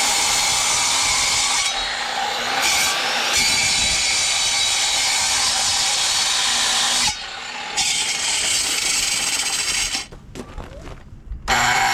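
A power tool running with a loud hissing, grinding noise, stopping briefly about seven seconds in and again for a second or so near the end.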